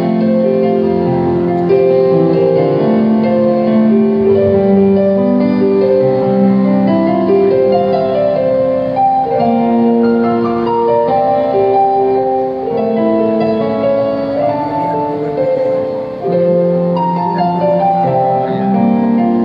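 Electronic keyboard playing a slow hymn introduction of long held chords under a simple melody.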